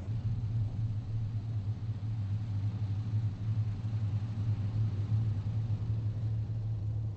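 Lockheed P-38 Lightning's twin Allison V-12 engines running at low power as the aircraft taxis, a steady low rumble.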